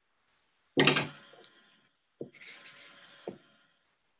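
A sudden knock against a tabletop, then a light tap, a short scrape and another tap, as art materials are handled on a paper-covered work surface.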